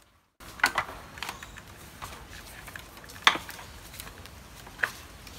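Sharp knocks and clicks of a bamboo ladder being climbed, as hands and feet take hold of the rungs. The loudest knock comes a little past three seconds in, with a few lighter taps between.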